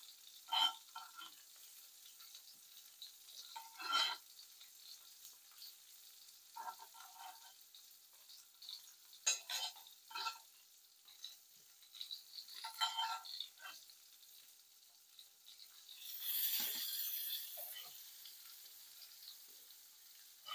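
Pancakes frying in pans with a faint steady sizzle, broken by repeated short scrapes and clinks of a utensil against the pan. A louder hiss lasts about a second and a half near the end.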